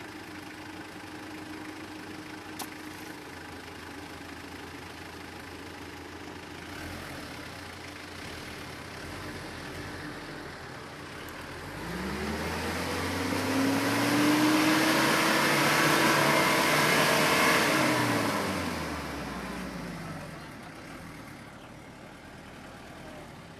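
Mitsubishi Triton L200 pickup engine running steadily at low revs. About halfway through it revs up and holds high revs for about four seconds with a loud rushing noise, then drops back down.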